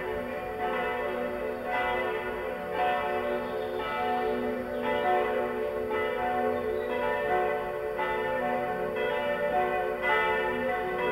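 Several church bells of a concrete bell tower swinging and ringing together in a full peal. Strikes come about once or twice a second and overlap, each tone ringing on under the next.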